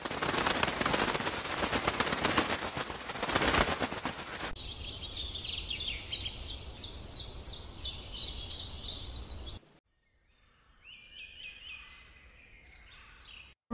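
Bird chirps: a run of short, high, downward chirps, about two or three a second, following a few seconds of even rushing outdoor noise, then near silence with a few faint chirps near the end.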